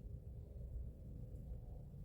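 Faint low background hum with no distinct event: room tone.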